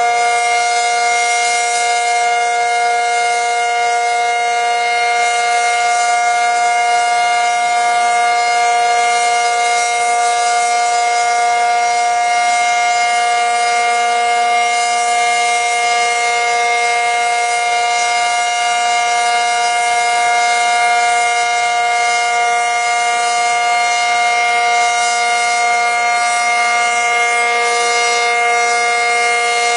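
ACA Cyclone 125 electromechanical outdoor warning siren sounding the steady alert signal: a loud, even tone held at one pitch.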